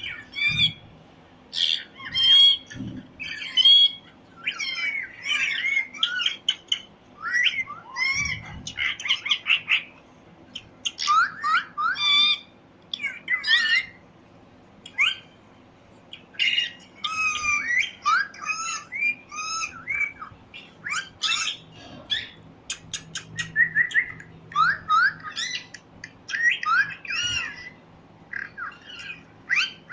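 Pet parrot chirping and squawking in a quick string of short, sharp calls that bend up and down in pitch, with brief pauses between bouts.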